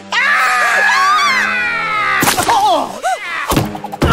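Cartoon fight sound effects over the film score: a long cry falling in pitch, then a hard thump a little over two seconds in and two more smacks near the end, as the knife-wielding mushroom sprite is knocked flat and splattered.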